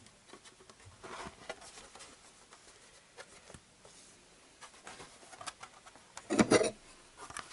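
Soft rubbing and tapping as a plastic motorcycle mudguard is turned over in the hands, then a short metallic clatter about six seconds in as a thin metal bracket plate is picked up off a wooden board.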